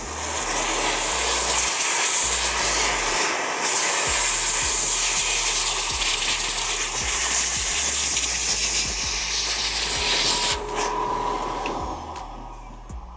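Adam's Air Cannon electric car-dryer blower running at reduced power, a strong rush of air from its hose nozzle over a tire's tread with a steady motor whine, blowing excess tire dressing out of the tread blocks. The airflow drops off suddenly about ten and a half seconds in and fades out over the next two seconds.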